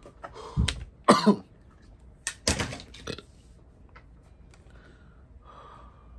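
A man coughing hard, a rapid run of harsh coughs over the first three seconds, after a long hit on a vape pen held until it blinks (a 'blinker').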